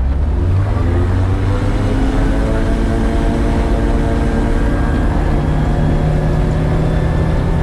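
Rotax 915 turbocharged four-cylinder engine of a Niki Kallithea gyrocopter running, heard from inside the cockpit; its pitch rises over the first few seconds, then holds steady.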